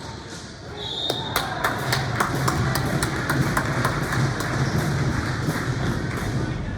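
Box lacrosse play in an arena: a rapid string of sharp clacks and knocks from sticks, ball and boards over a steady crowd and arena din, with a brief high tone about a second in.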